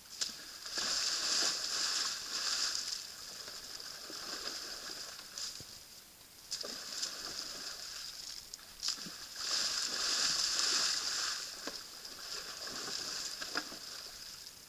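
Bull elk wallowing in a muddy pool, splashing and sloshing the water and mud. The splashing comes in bursts, loudest in two spells of a couple of seconds, about a second in and around ten seconds in, with a few sharp knocks between.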